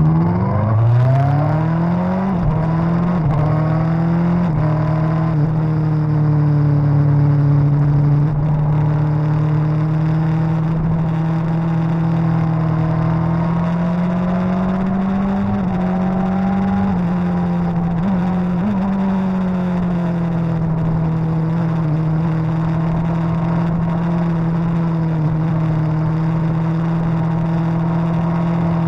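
Suzuki GSX-R1000's inline-four engine accelerating hard at the start, its pitch climbing and stepping as it shifts up. It then runs at a steady high pitch with small rises and falls.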